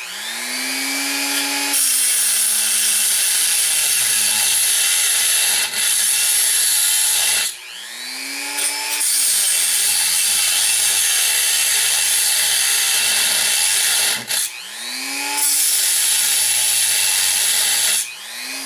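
Handheld power grinder cutting through a steel throttle cable. It comes in three runs, each starting as the motor winds up to speed and then settling into a steady, loud, high grinding hiss, with short breaks in between; near the end the motor winds down.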